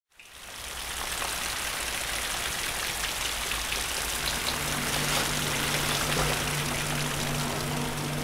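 A steady rain-like hiss fades in over the first second and runs on evenly. About halfway through, a low steady hum of two tones joins it.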